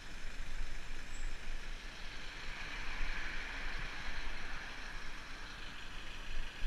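Wind buffeting and road hiss on a bicycle-mounted camera while the bike is ridden and turning, with the hiss swelling about halfway through.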